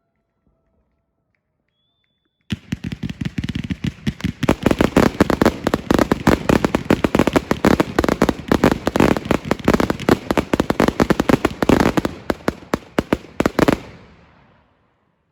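Firework barrage: after a couple of seconds of quiet it starts suddenly and fires a fast, dense string of sharp bangs, many a second, for about eleven seconds, then stops abruptly with a short fading echo.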